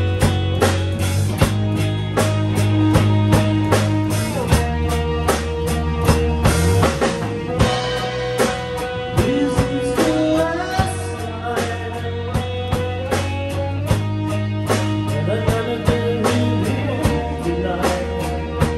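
Live band playing a blues-rock instrumental: a drum kit keeps a steady beat under a deep bass line while an electric guitar plays a lead melody of long, bent notes over rhythm guitar.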